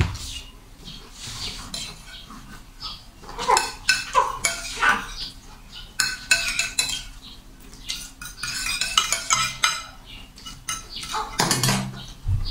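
Metal spoon and fork scraping and clinking against ceramic plates during fast eating, in irregular sharp clicks and scrapes.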